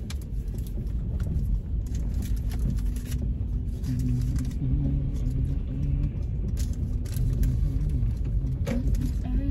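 Steady low road and engine rumble inside a moving car's cabin, with music playing over it.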